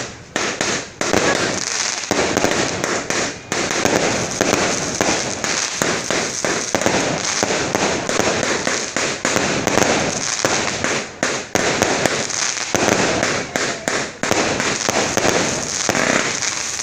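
Fireworks going off in a rapid, near-continuous barrage of pops and crackles, with a few brief lulls.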